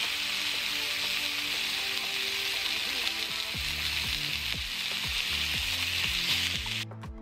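Bacon strips sizzling in a cast iron skillet, a steady hiss that cuts off abruptly near the end.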